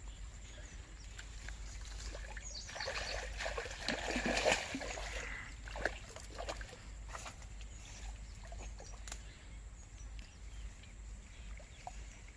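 Water splashing for a couple of seconds, starting about three seconds in, followed by a few sharp clicks.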